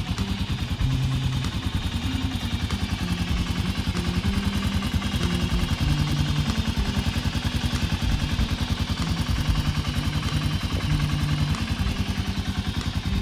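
Motorstar Mash C400 motorcycle engine idling steadily with an even, rapid firing beat, just after being started on fresh oil.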